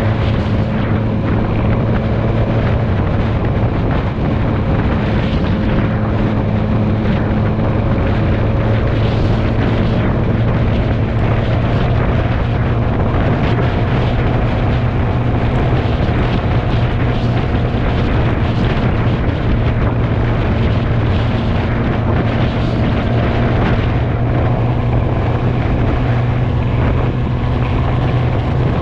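Motorcycle engine running steadily at cruising speed, with wind rushing over the microphone; the engine note rises slightly partway through.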